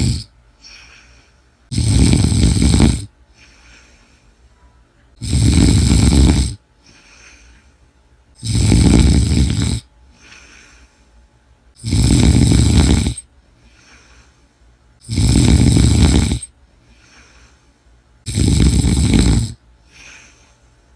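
A sleeping person snoring loudly: six long snores, each a little over a second, coming evenly about every three seconds, with faint breaths in between.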